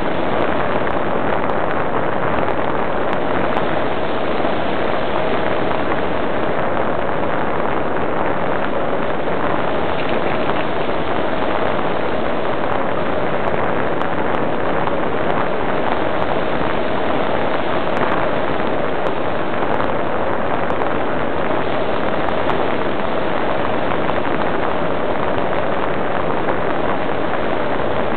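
Steady rush of air over a ParkZone Radian glider and its onboard camera in gliding flight, propeller folded and motor off, with a steady tone under the rushing noise.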